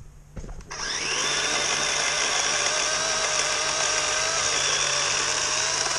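DeWalt electric chainsaw spinning up about a second in and running at a steady high whine as it cuts through a small log.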